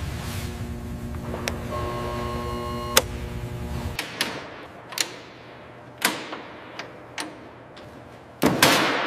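A steady electrical hum with held tones and a couple of sharp clicks, which stops abruptly about four seconds in. Then come sharp metallic clicks about once a second, from tools and couplings on a vehicle's hydraulic line fittings, and a loud burst of hissing near the end.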